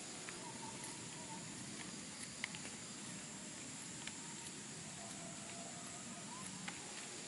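Faint outdoor ambience: a steady hiss with a thin high whine running through it, broken by a few soft clicks and a couple of brief faint chirps.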